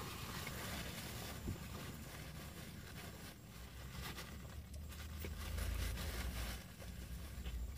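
Low vehicle rumble heard inside a car cabin, swelling for about a second some five seconds in.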